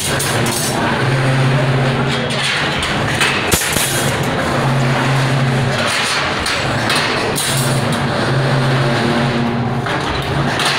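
Loud, steady industrial machinery noise, with a low hum that switches on and off in stretches of about a second.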